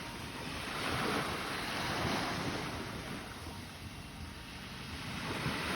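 Sea waves washing onto the shore, swelling and falling, with wind buffeting the microphone.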